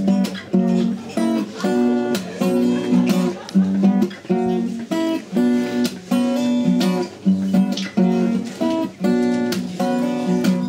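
Steel-string acoustic guitar strummed in a steady rhythm, chords struck over and over: the instrumental intro before the singing starts.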